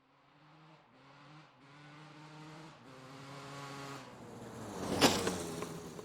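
Racing motorcycle approaching under hard acceleration, its engine pitch climbing and breaking off several times as it shifts up. It passes close about five seconds in, loudest there, then the pitch drops as it moves away.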